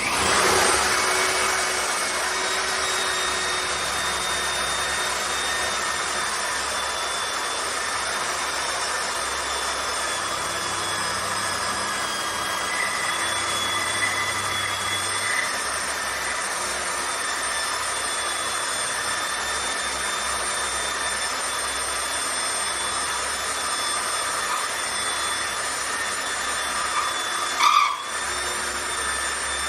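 Electric motor of a JLD 3301 350-watt polisher-drill running steadily with a high whine after starting up at the beginning. There is one brief louder burst near the end.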